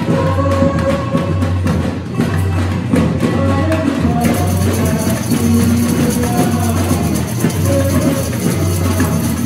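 Live samba music from a samba band: deep surdo bass drums beat in a steady repeating pattern under busy higher percussion, with a pitched melody line over them. About four seconds in, the high percussion turns into a brighter, steady shimmer.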